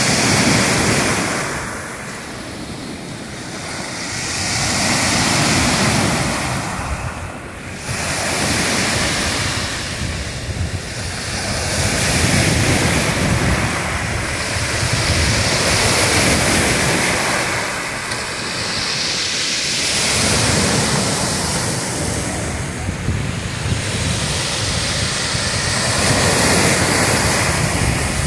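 Black Sea surf breaking and washing up over a pebble beach: a steady rush of water that swells and fades every few seconds as each wave comes in.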